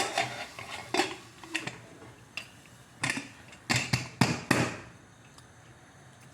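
Pressure cooker lid being fitted and locked shut: a string of sharp metal clanks and clicks, most of them bunched a few seconds in.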